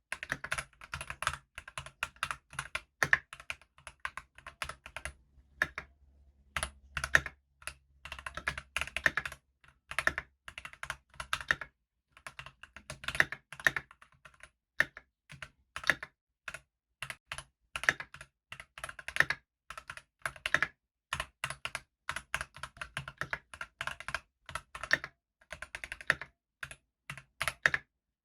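Stock Keychron V1 tray-mount mechanical keyboard being typed on steadily, keys clacking in quick irregular runs with brief pauses, straight from the factory with no mods.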